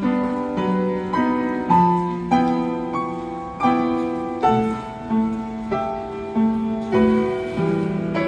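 Upright piano played at a steady, moderate pace, with notes and chords struck about every half second to second and each one left ringing.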